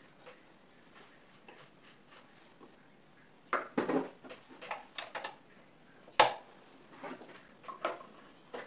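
Irregular clicks and knocks of hands working at a cabinet sewing machine, faint ticking at first, then a run of sharper knocks from about three and a half seconds in, the loudest about six seconds in.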